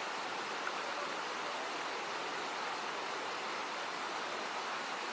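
Fast-flowing river water rushing steadily, the constant noise of waterfall cascades.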